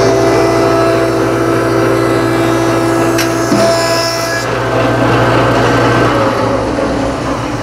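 Jet combination jointer/planer running and planing a board to 3/4 inch, with the cutting noise of the cutterhead on wood until about four and a half seconds in. The machine's motor runs on after that, then is switched off about six seconds in and winds down.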